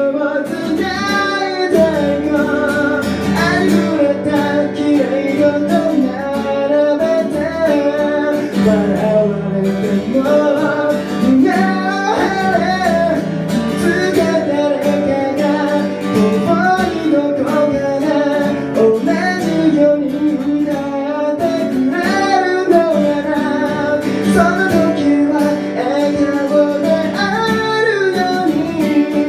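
A song played on strummed acoustic guitar with a singing voice carrying the melody.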